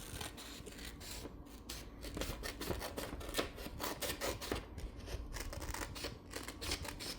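Scissors cutting through printer paper: a run of quick, irregular snips with paper rustling.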